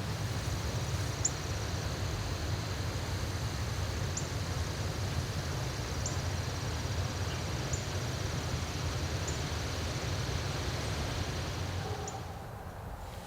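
Outdoor ambience: a steady high insect trill with a short, high chirp every second or two over a low rumble. The trill stops near the end.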